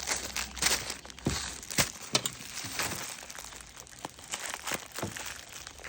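Plastic bags of beads crinkling and rustling as they are handled, with scattered small clicks.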